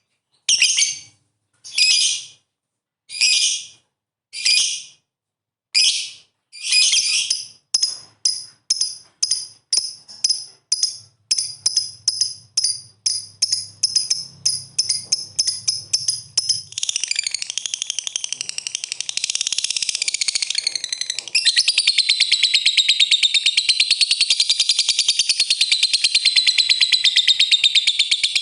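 Lovebird calling: separate sharp high chirps, at first about one a second, come quicker and quicker until about two thirds of the way through they run together into a long, continuous rapid chattering trill, the lovebird's 'ngekek' call.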